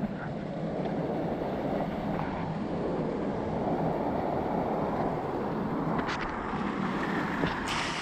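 Steady rushing of a small waterfall spilling into a jungle stream, an even wash of water noise.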